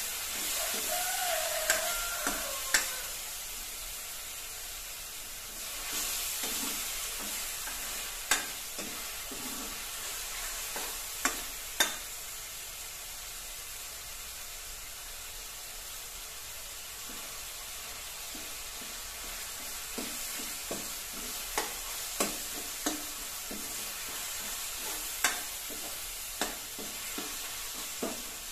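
Chopped tomatoes with dried chilli frying and sizzling in a steel kadai, cooking down after salt was added to soften them quickly. A steel ladle stirs and scrapes through the mixture, with sharp clinks against the pan every few seconds.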